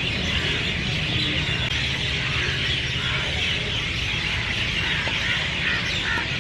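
Dense chorus of many birds chirping together, a continuous chatter with no single call standing out, over a steady low rumble.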